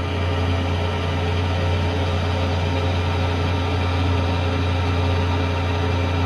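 Kearney & Trecker milling machine with a rotary head running steadily, its end mill cutting the top face of a cast aluminium intake manifold: a steady low hum with steady whining tones above it.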